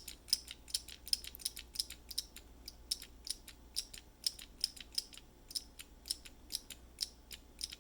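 A 3D-printed key switch prototype being pressed again and again, a small disc inside flying up and smacking into the switch housing to make it click. Light, sharp clicks, irregular, several a second.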